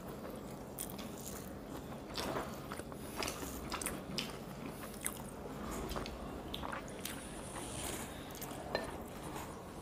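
Quiet eating sounds: chewing, with fingers mixing rice and curry on plates, giving scattered small clicks and soft squishes.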